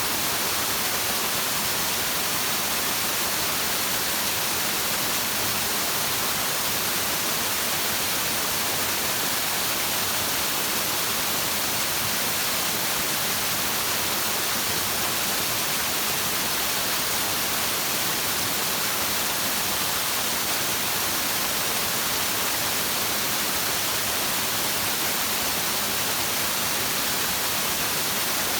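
Flowing stream water making a steady, even rushing hiss with no breaks or changes in level.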